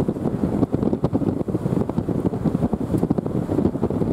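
Strong wind buffeting the microphone: a loud, dense, gusty rumble with rapid flutter and no pitch, from thunderstorm squall-line winds.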